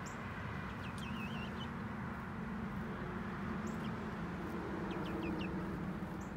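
Young pullets peeping a few times: one warbling peep about a second in and a quick cluster of short peeps around five seconds, over a steady low background hum.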